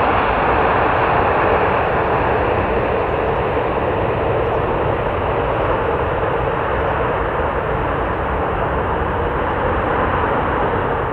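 Boeing 787-8 Dreamliner's jet engines making a loud, steady noise as the airliner rolls out on the runway after landing, fading slightly near the end.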